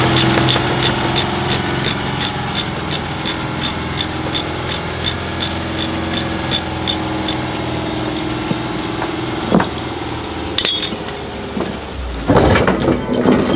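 Large military truck's diesel engine running as it pulls slowly away, with a rapid, even ticking that fades out about two thirds of the way through. Near the end come several loud metal clanks.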